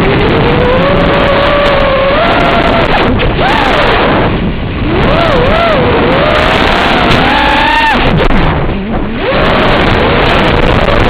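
QAV-R220 FPV racing quadcopter's brushless motors whining, their pitch sliding up and down with the throttle, over a constant rushing noise. The motor sound briefly drops away twice.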